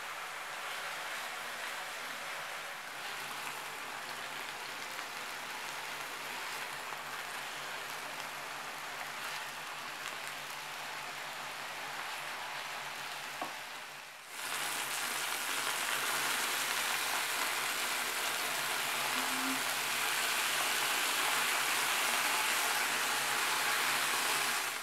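Marinated chicken breast fillets sizzling in oil in a nonstick frying pan, a steady dense hiss. About halfway through it cuts to a louder, fuller sizzle, just after a single light click.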